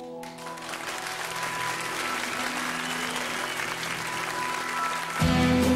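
Studio audience applauding, with a few faint held musical notes underneath. About five seconds in, a band with guitars starts playing, much louder.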